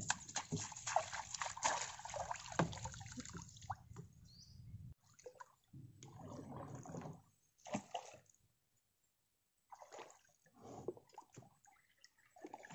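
Water sloshing and dripping around a wire-mesh fish trap being handled at the water's surface: a dense spatter of drips and small splashes for about five seconds, then scattered splashes and knocks.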